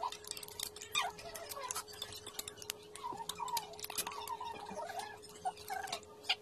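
Close-up eating sounds from hand-eating seafood: wet clicks and smacks of chewing and of fingers peeling shells, irregular and quick, mixed with short squeaks. A faint steady hum lies underneath.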